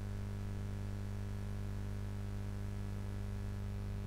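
Steady low electrical hum, a mains hum with its evenly spaced overtones, holding level throughout.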